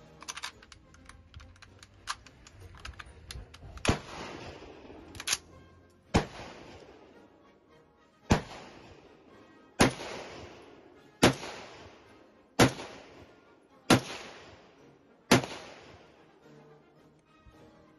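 A few light clicks, then about nine single rifle shots from a Gewehr 43 semi-automatic rifle in 7.92 mm Mauser, fired one at a time about a second and a half apart, each shot trailing off in an echo.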